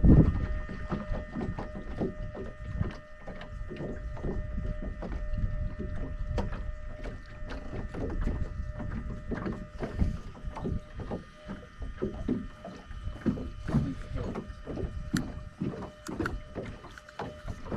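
Water slapping against a small boat's hull in irregular knocks and splashes, over a steady faint hum.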